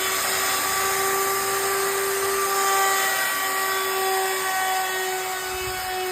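Electric wood router running at full speed while routing a wooden door frame: a steady high motor whine over the hiss of the cut.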